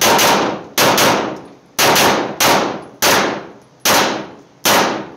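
Arex Delta Gen 2 9mm pistol fired in a rapid string of about ten shots, several in quick pairs, over a little under five seconds. Each report rings off the walls of an indoor range.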